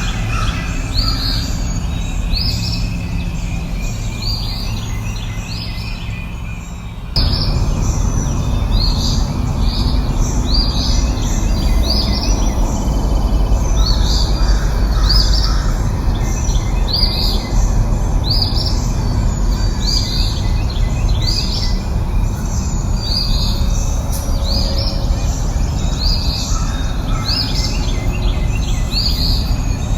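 Small birds chirping, a stream of short, repeated, falling chirps, over a steady low background rumble. The background gets abruptly louder about seven seconds in.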